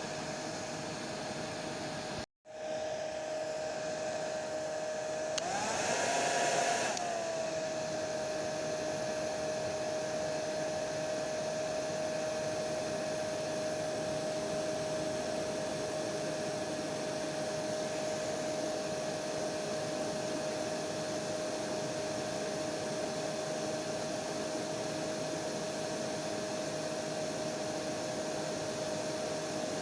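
Hair dryer running steadily, a rushing blow with a constant whine. It cuts out for a split second about two seconds in. A few seconds later it briefly rises in pitch and gets a little louder for about a second and a half, then settles back to the same steady drone.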